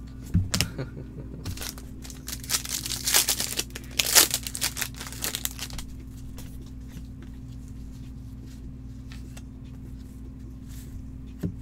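Trading cards and plastic card holders being handled with nitrile-gloved hands. There are a couple of knocks near the start and a few seconds of crinkling and rustling, then quieter handling of a stack of cards, over a steady low hum.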